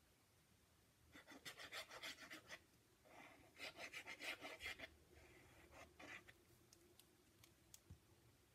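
The tip of a liquid glue bottle rubbing back and forth across a cardstock panel as glue is spread over it. There are two runs of quick strokes, about five a second, then lighter strokes and a few light ticks near the end.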